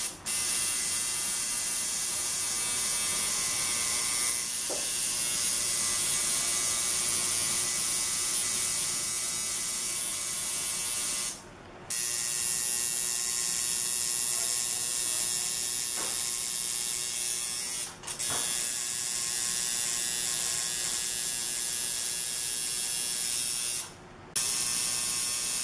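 Electric tattoo machine buzzing steadily as its needle works into the skin, breaking off briefly a few times.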